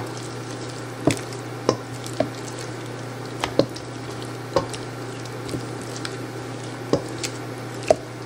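A silicone spatula stirring chunks of chicken in a thick creamy sauce in a stainless steel mixing bowl. There is wet squishing, with sharp clicks and knocks of the spatula against the bowl at irregular spacing, about one a second, over a steady low hum.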